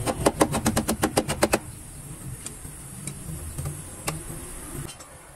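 Small hammer tapping rapidly on a welded sheet-steel rocker panel during rust repair: about a dozen quick, ringing metallic strikes in a second and a half, followed by a few light clicks.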